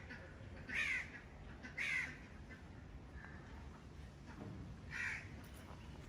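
A crow cawing outdoors: two harsh caws about a second apart, then a third a few seconds later.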